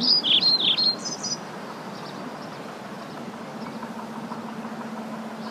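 Soundtrack of a birds-in-flight stock clip: a few short, falling bird chirps in the first second or so, then a steady rushing noise with a faint low hum.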